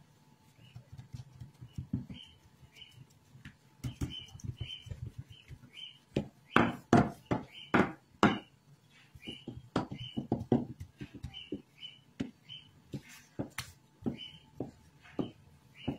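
Wooden rolling pin working a log of bread dough flat on a counter: irregular knocks and clacks of the pin and handles against the dough and work surface, loudest in a quick run about halfway through. A steady string of small high chirps repeats throughout.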